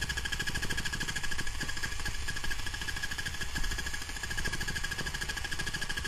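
Haier battery-powered handheld mini washer running steadily, a fast even buzzing pulse over a high steady hum, as it is pressed against wet fabric to drive water through the stain.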